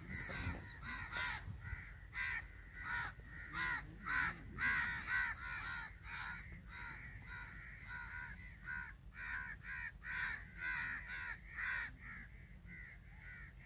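Crows cawing, a continuous run of short calls, several a second, with calls overlapping one another.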